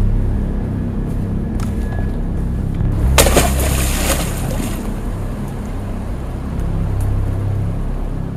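A heavy case thrown into a stream hits the water with one loud splash about three seconds in, dying away within about a second and a half. Under it runs a steady low droning music bed.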